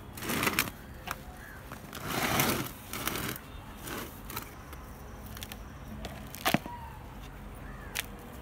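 Potting soil being scooped out of a plant pot by hand: a few short scraping, rustling bursts, with a couple of sharp clicks later on.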